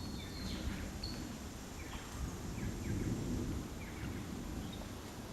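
Short, high chirping calls, about ten of them and each dropping in pitch, over a steady low rumble.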